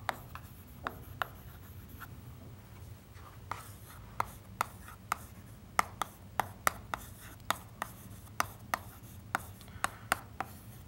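Chalk writing on a chalkboard: a string of short, sharp taps as the chalk strikes the board with each stroke, sparse at first and then about two a second, with soft scratching between them.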